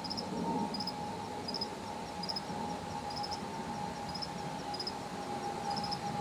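Woodland ambience: insects, likely crickets, chirping high in short clusters that repeat about once a second, over a steady whistle-like tone that dips slightly in pitch near the end.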